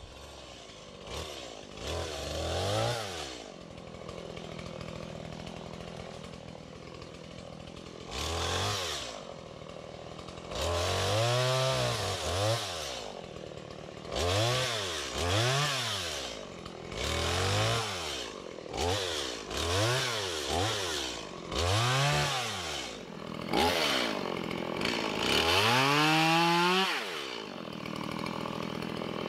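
Chainsaw running low for the first several seconds, then revving up and down over and over, about once a second, as it cuts the limbs off a felled tree.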